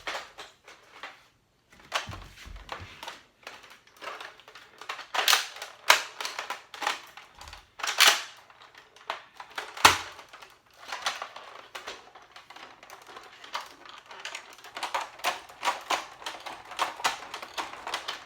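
Plastic giant Nerf blaster clattering as it is twirled by hand: a run of irregular clicks and rattles, with a few louder sharp knocks about five, eight and ten seconds in.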